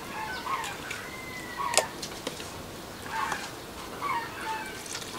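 A metal spoon stirring bánh xèo batter with eggs in a plastic bowl, with a sharp knock about two seconds in. Chickens cluck in the background.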